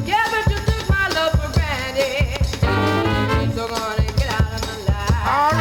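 Soul-funk band music: a steady drum beat and bass under a melody line that bends in pitch.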